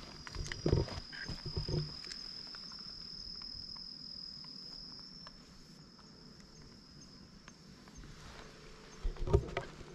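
An insect's steady high-pitched buzz, fading about halfway through and returning near the end, with a few close thumps and rustles about a second in and again near the end.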